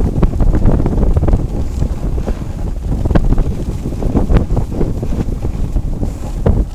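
Wind buffeting the microphone of a camera carried down a ski slope at speed: a loud, steady low rumble with short crackles throughout.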